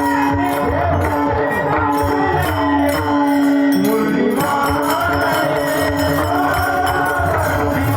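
Devotional singing by a male voice, with long wavering melodic lines, over a steady held accompanying note and a rhythm of jingling percussion.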